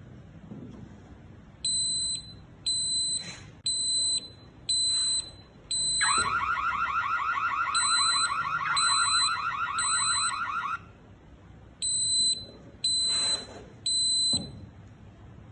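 Smart smoke detector's piezo alarm sounding high-pitched beeps about once a second. For about five seconds in the middle, a second, lower alarm tone with a rapid warble sounds along with the beeps.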